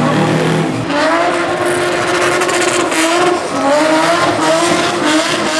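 Rally car engine driven hard, its note climbing and dropping back several times.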